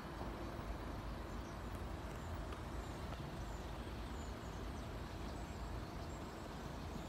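Steady low outdoor background rumble, with faint high bird chirps now and then.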